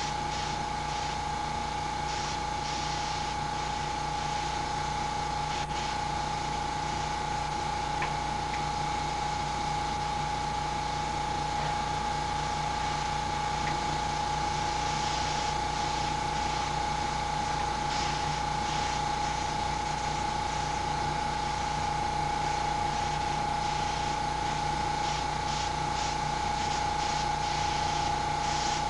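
Small airbrush compressor running with a steady hum, while the airbrush gives short spurts of hiss as paint is sprayed.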